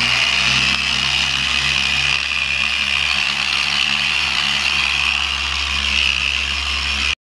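Handheld electric rotary polisher with a foam buffing pad running steadily on a painted fuel tank, a high whine that wavers slightly. It stops abruptly near the end.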